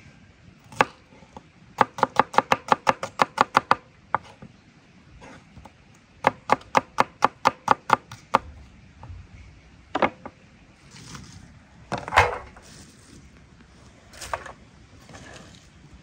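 Knife slicing an onion on a wooden cutting board: two quick runs of about ten chops each, roughly five a second, then a few single knocks, the loudest near the end.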